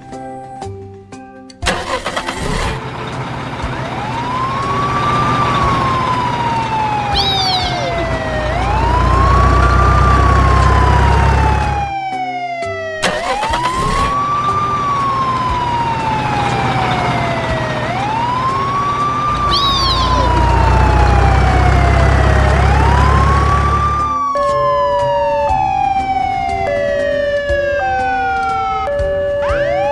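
Emergency-vehicle siren wailing: each cycle rises quickly and falls slowly, about every three and a half seconds. It sits over a loud rushing noise, and a deep rumble swells twice. Near the end a two-note siren alternates between a high and a low tone.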